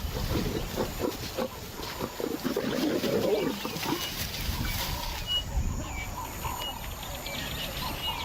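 Lion growling in low, rough bursts, loudest about three seconds in, with short high chirps repeating in the second half.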